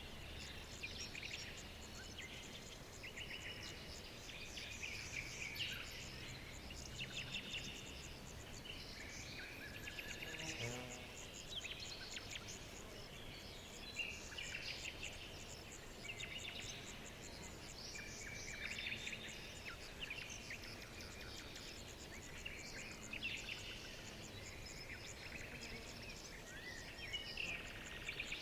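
Many small birds chirping and trilling at once, calls overlapping in quick runs, over a faint low background hum. About ten seconds in, a short tone falls steeply in pitch.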